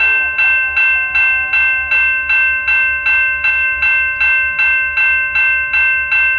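A railway bell ringing in a steady rhythm, about two and a half strikes a second, its tone ringing on between strikes.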